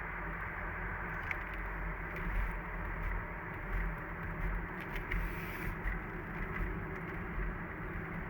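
Mazda CX-30's 1.8-litre diesel car running, a steady low rumble of engine and road noise with a few faint ticks.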